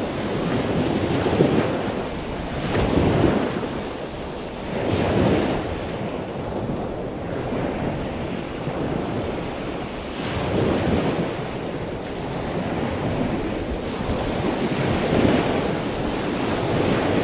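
Wind gusting over the microphone: a rushing rumble that swells and eases several times.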